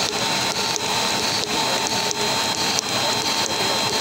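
Electric motor of a solar tube well pump running and driving a flat belt: a steady whir with a thin steady whine over it and a faint regular beat.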